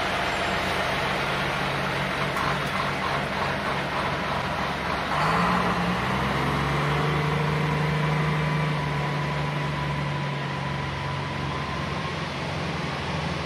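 Diesel engine of a FAUN heavy-haulage ballast tractor pulling a heavy oversize load at walking pace; about five seconds in the engine revs up and then holds a steady, higher drone.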